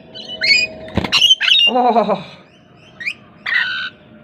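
Lorikeets giving short, high calls one after another, with a sharp knock about a second in.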